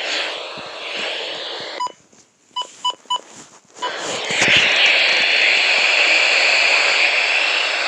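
Radio receiver giving five short electronic beeps, like keypad button presses, over a near-quiet gap. About four seconds in, a loud, steady static hiss starts.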